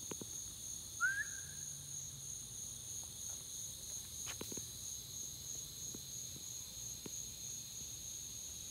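A steady, high-pitched chorus of insects droning without a break, with one short rising chirp about a second in and a few faint ticks.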